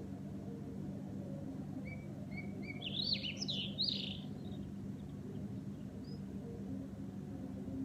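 A small songbird sings a single short phrase: a few soft rising notes about two seconds in, then a quick, louder burst of chirps. A steady low hum runs underneath.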